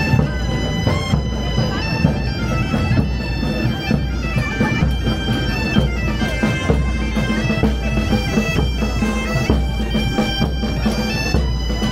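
Bagpipes playing a stepping melody over a steady drone, with bass and snare drums beating along as a marching pipe band.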